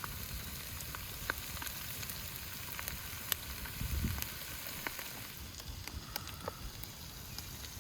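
Chunks of fatty lamb and veal sizzling as they fry in their own rendered lamb fat in a hot cauldron, a steady hiss with scattered sharp pops and crackles.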